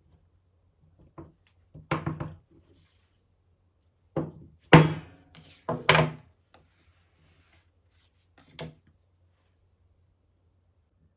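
Carved wooden kömbe cookie mould knocked hard against a wooden table to release the pressed cookie dough: a series of sharp wooden knocks, the loudest cluster about halfway through and a lighter knock near the end.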